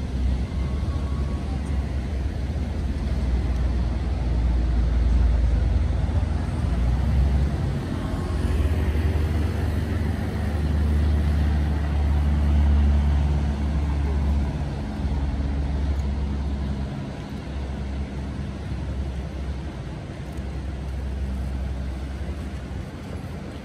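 Jet airplane flying over the ocean: a low rumble that swells through the middle and fades toward the end.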